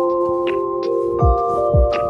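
Background music: a lo-fi beat with soft sustained chords, a kick drum and light ticks at a steady pulse.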